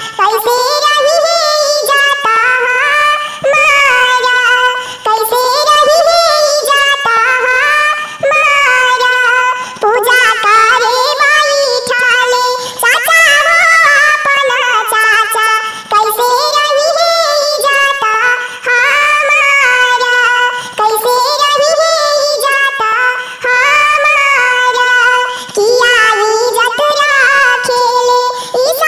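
A high, pitch-shifted cartoon-style voice singing a Bhojpuri/Magahi bidai geet, the bride's farewell song from a wedding.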